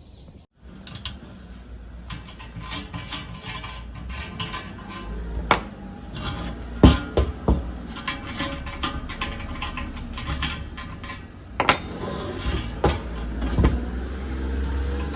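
Metal items clinking and clanking as they are handled, with several sharper knocks, over faint background music.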